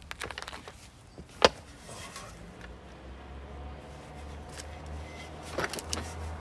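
Scattered knocks and clicks of car parts and tools being handled during a front-mount intercooler fitting. There is one loud sharp knock about a second and a half in and a small cluster near the end, over a low steady hum.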